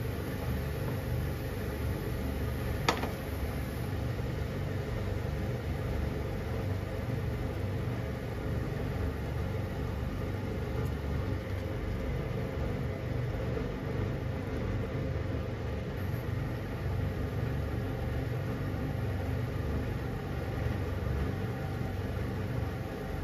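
Salted broth with udon noodles and chicken boiling in a pan on the stove: steady bubbling over a low rumble, with one sharp click about three seconds in.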